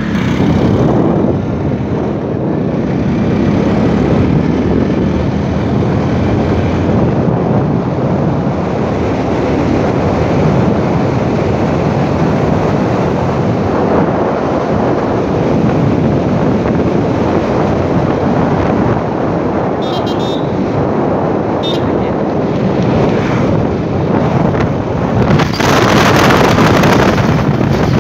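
Wind rushing over the phone's microphone on a moving motorcycle, mixed with the steady running of the motorcycle's engine. The wind noise grows louder near the end.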